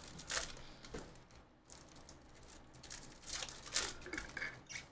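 Foil wrapper of a Bowman University Chrome basketball card pack being torn open and crinkled by hand, in several short bursts of tearing and rustling.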